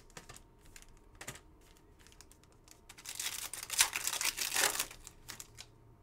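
Trading cards clicking and tapping as they are handled and stacked. Then, about three seconds in, a Panini Select football card pack's foil wrapper crinkles loudly for about two seconds as it is torn open.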